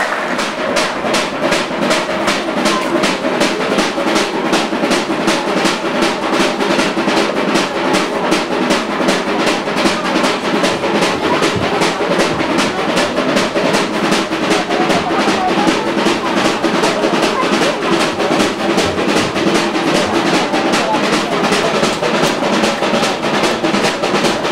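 A group of voices singing together over a fast, even percussion beat of about three strokes a second, with handclaps: a Pacific Island dance song performed live.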